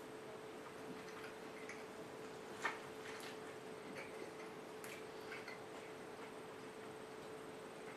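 Faint chewing of a BLT sandwich: soft irregular mouth clicks, one sharper click a little under three seconds in, over a steady low electrical hum.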